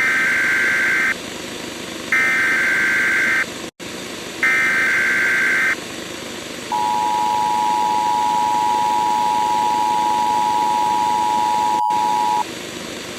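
Emergency Alert System tones: three buzzy bursts of SAME header data, each a little over a second long with short gaps between them, then the steady two-tone attention signal, held for about six seconds before it cuts off.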